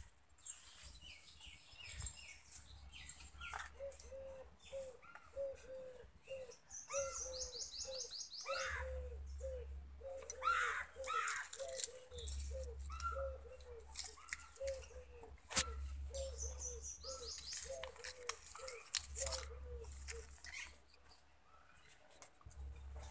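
Birds calling outdoors: a short low note repeated about twice a second for most of the time, with scattered higher chirps and a quick, high rattling trill twice. One sharp click stands out about two-thirds of the way through.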